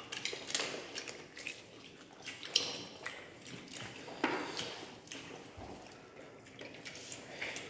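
Scattered soft smacks, clicks and taps of people eating rice with their fingers from plates and chewing, with a couple of sharper clicks about two and a half and four seconds in.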